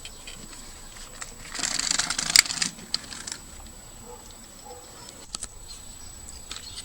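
Small plastic clicks and a brief rattling scrape from a toy-grade RC truck being handled, with the louder rattle about a second and a half in, ending in a sharp click.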